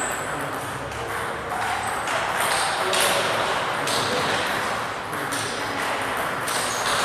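Table tennis balls clicking irregularly against bats and tables, over faint background voices.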